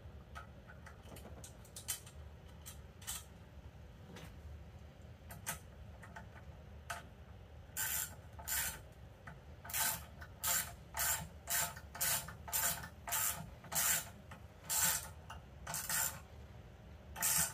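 Ratchet wrench tightening a bolt on a throttle body bracket. A few scattered light clicks, then from about eight seconds in a steady run of short ratcheting strokes, about two a second.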